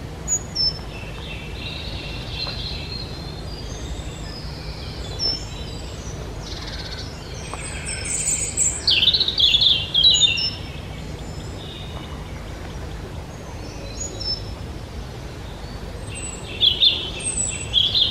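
Several woodland songbirds singing, a mix of short chirps and trills that is busiest about eight to ten seconds in, over a steady low rumble.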